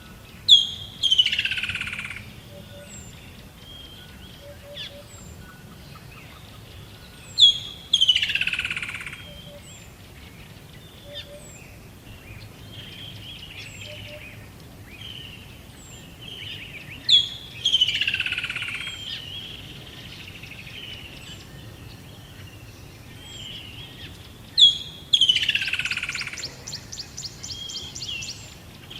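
Forest birdsong: one bird repeats a loud phrase four times, each a sharp high note followed by a falling slurred sweep, while other birds chirp softly between, and a fast trill comes in near the end.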